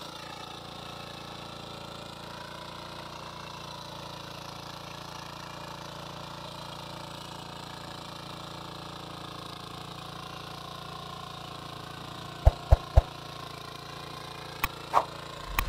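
Power weeder's small single-cylinder engine running steadily as its rotary tines till the soil between crop rows. Near the end three sharp clicks come in quick succession, then two more, the sound effects of an on-screen subscribe-button animation.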